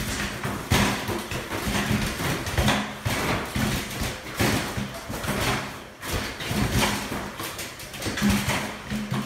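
Mini basketballs hitting the backboard and rims of a Pop-A-Shot arcade hoop game in quick succession, a thud or clang about once a second.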